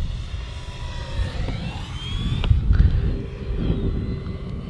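Electric motor and propeller of an E-flite Draco 2.0m RC plane in flight, a thin whine rising in pitch that breaks off about two and a half seconds in, then a steadier lower tone. Wind rumbles on the microphone underneath.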